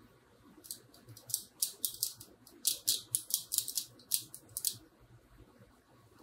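A small metal tool clicking and scraping against a guitar preamp circuit board and its metal shield. It makes a quick, irregular run of small sharp clicks that starts about a second in and stops about five seconds in.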